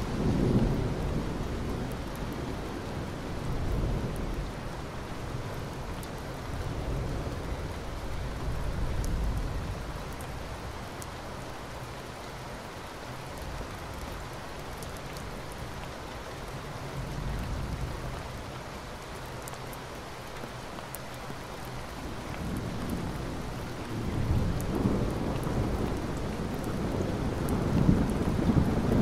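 Steady rain with low rolling thunder that swells and fades several times, the longest and loudest stretch near the end.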